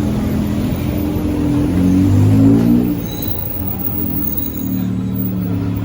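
Busy street traffic: vehicle engines running, one rising in pitch and getting louder about two seconds in, then easing off.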